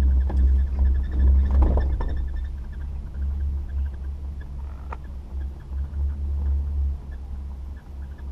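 Wind buffeting the microphone on a moving chairlift chair: a low rumble that eases after about three seconds, with a few faint clicks.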